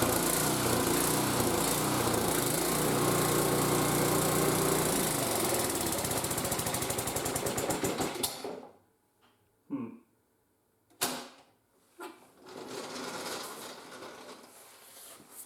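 Gasoline snowblower's small engine running steadily, cutting off abruptly about eight seconds in; a few short knocks and faint noise follow.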